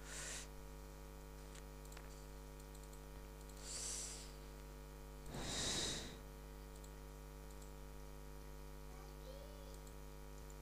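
Steady low electrical hum from the recording setup, with a few faint mouse clicks and two short breathy hisses about four and six seconds in.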